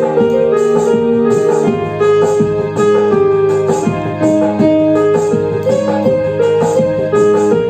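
Electronic keyboard music: a melody over held chords, with a steady beat of ticks about twice a second from a rhythm accompaniment.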